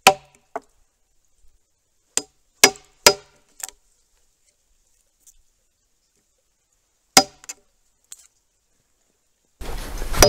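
Traditional Korean carpenter's chisel (hanok-kkeul) being struck and driven into a timber beam, chopping out a mortise: about eight sharp blows of steel and wood in uneven groups with pauses between. Background music comes in near the end.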